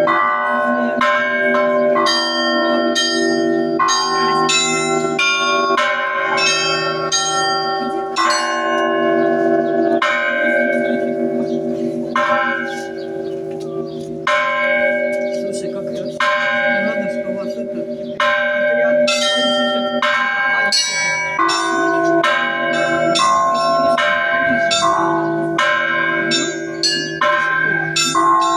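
Russian Orthodox church bells being rung: small bells struck rapidly in a rhythmic pattern over the sustained low hum of the large bells, with the strikes thinning briefly around the middle.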